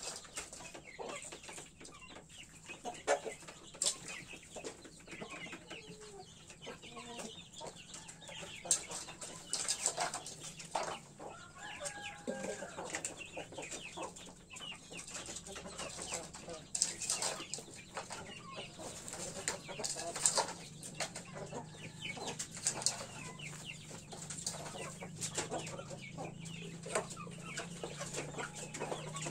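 Roosters pecking feed from a bowl on a dirt floor, their beaks striking it in irregular sharp taps, with soft clucking between.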